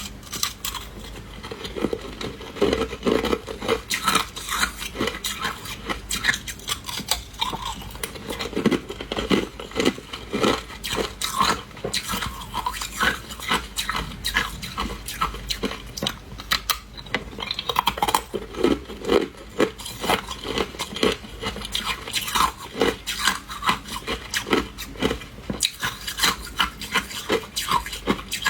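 A person biting and chewing hard ice: a continuous run of sharp crunches and cracks, several a second.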